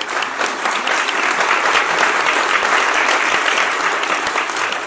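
A large audience applauding, many hands clapping in a dense, steady patter that is louder than the talk around it.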